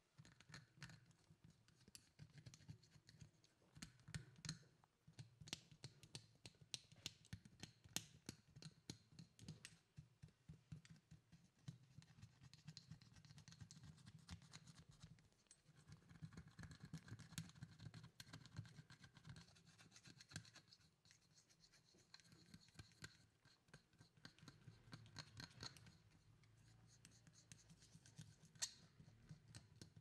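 A thin stick stirring and scraping inside a small stone bowl: a faint, irregular run of quick scratches and clicks against the stone, with brief lulls now and then.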